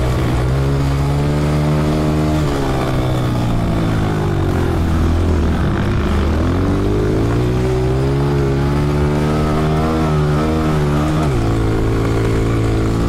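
Honda CRF125F dirt bike's single-cylinder four-stroke engine under way on the track. The revs fall off about two and a half seconds in and sag, then climb steadily from about six seconds before dropping sharply near eleven seconds on an upshift, then hold.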